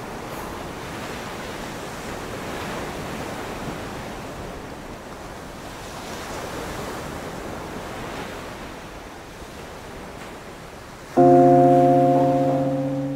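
Ocean surf washing in slow swells, then about eleven seconds in a loud musical chord strikes and slowly fades.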